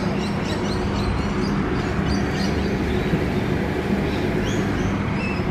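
Steady outdoor background noise with a low, even hum, and short bird chirps now and then.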